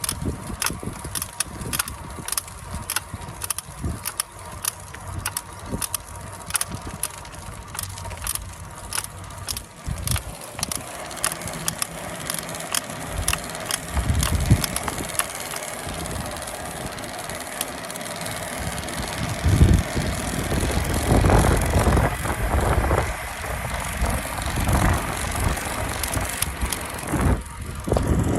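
Creaking and clicking from the drive unit and crank area of a Trek Domane+ SLR7 Gen 4 e-road bike while it is ridden, a string of sharp clicks about twice a second. The noise came on after about 6,500 km and comes mainly under full turbo assistance; the owner treats it as a fault and has made a warranty claim. In the second half, rushing wind and road noise with low gusts grow over the clicks.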